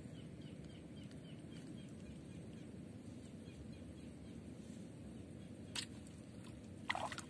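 Quiet outdoor ambience: a steady low background hiss with a run of quick, faint high chirps in the first couple of seconds. Near the end there is one brief knock, then a short burst of rustling.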